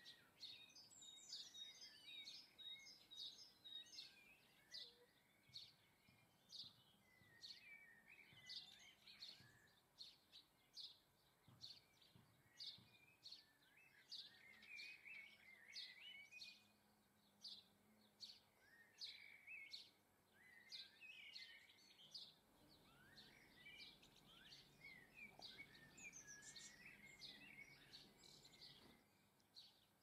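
Faint birdsong: many short, high chirps, about one or two a second, over lower twittering phrases from several small birds.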